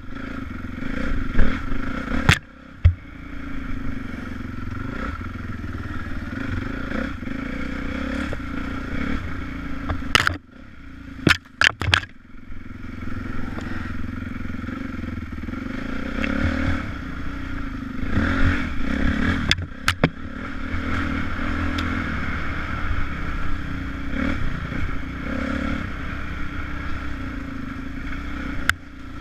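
Dirt bike engine running and revving as the bike is ridden along a bumpy forest trail, with sharp knocks and clatter now and then. The engine note drops away briefly twice, a couple of seconds in and again around the middle.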